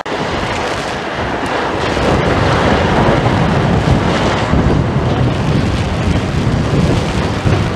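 Brick masonry and roof sections of a building crashing down as a Cat 374F demolition excavator pulls them apart with its shear. A dense rumble and clatter that grows louder about two seconds in.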